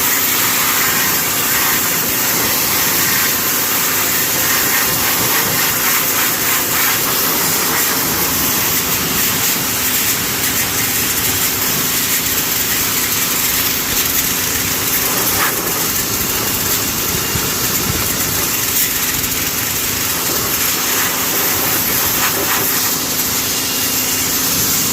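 Pressure washer running steadily, its motor hum under the hiss of the water jet. It cuts off abruptly at the end.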